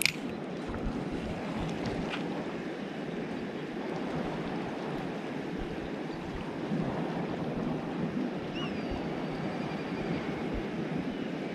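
Steady wash of sea and wind at a fishing harbour, with a sharp click right at the start and a fainter click about two seconds in.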